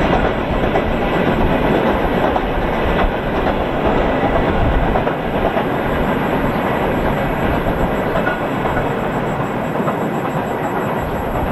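Freight train rolling past at speed, its steel wheels clattering over the rails in a loud, steady rumble that eases slightly near the end.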